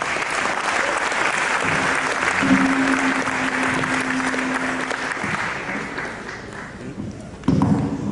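Audience applauding, fading out about seven seconds in, with music playing beneath it. A louder pitched sound, music or a voice, comes in near the end.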